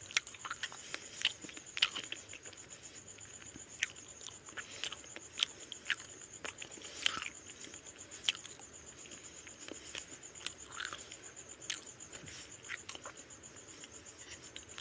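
Close-up eating sounds: irregular wet smacks and clicks of chewing fish head curry and rice eaten by hand.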